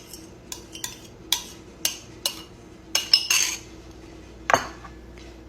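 A series of sharp taps and clinks against a mixing bowl, about eight separate knocks with the loudest a little past halfway and near the end, as two eggs are cracked and added to the muffin batter.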